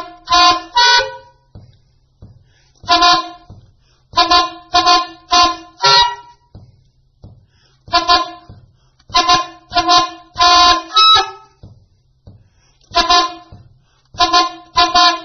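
Soprano saxophone honking short multiphonic blasts, several pitches sounding at once, in clusters of two to five notes with pauses between clusters.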